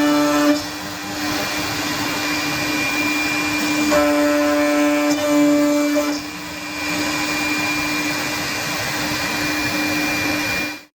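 CNC router running while it cuts an MDF sheet: a steady whine over a rush of noise. Twice a buzzing, many-toned hum joins in for a second or two, first at the very start and again about four seconds in. It all cuts off suddenly near the end.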